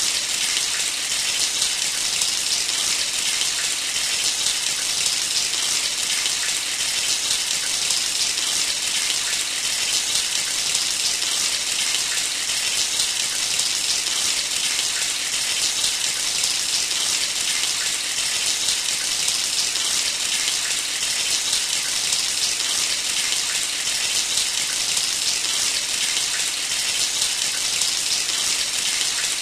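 Shower running: a steady spray of water hissing down, even and unchanging throughout.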